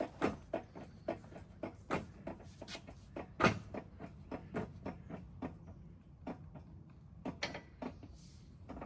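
Irregular light clicks and knocks, a few a second, with one louder knock about three and a half seconds in: tools and parts being handled during suspension work on a truck.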